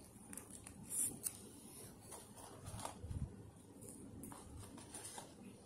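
Close mouth sounds of someone biting into and chewing a burger: wet smacking and soft clicks, the sharpest about a second in.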